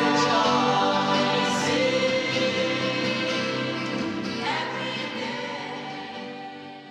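Mixed choir singing in harmony on long held notes, fading out over the last few seconds.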